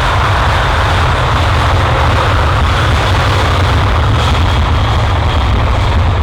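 Jet airliner engines running at high power: a loud, steady noise over a deep rumble.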